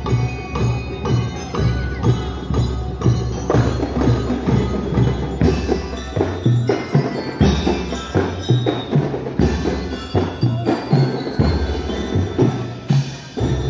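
School marching band of drums and bell lyres playing: drums keep a steady beat under a ringing, bell-like melody.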